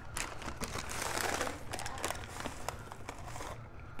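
Paper takeout bag rustling and crinkling as it is handled and opened, a run of crisp crackles that dies away near the end.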